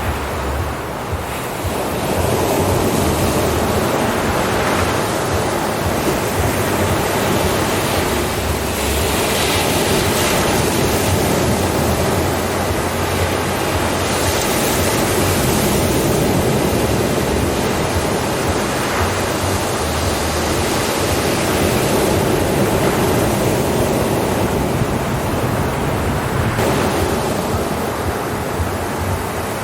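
Ocean surf: waves breaking and washing in, a continuous rush of water that swells and eases gently every few seconds.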